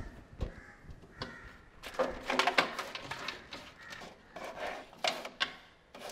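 Hands rummaging through a wooden TV cabinet behind its glass door, searching for a key: scattered knocks, clicks and rattles of objects being moved, loudest about two seconds in and again near the end.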